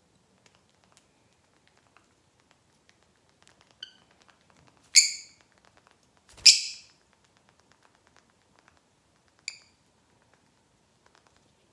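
Pet lovebirds, a peach-faced and a Fischer's lovebird, giving four short, high-pitched chirps, the loudest about six and a half seconds in, with faint clicking between the calls.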